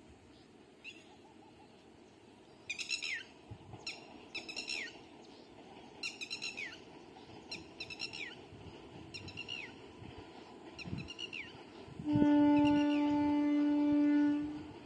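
A bird gives repeated short calls, each sweeping downward in pitch. Then a railway locomotive horn sounds one steady note for about two seconds near the end, the loudest sound here.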